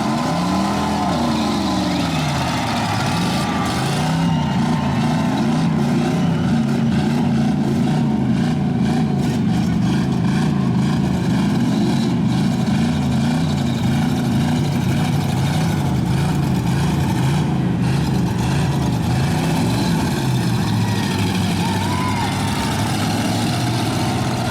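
Several car engines revving up and down together, their pitch rising and falling over and over as the cars accelerate and back off.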